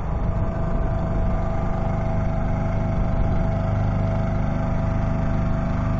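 Boat engine running steadily at an even speed, with a constant hum.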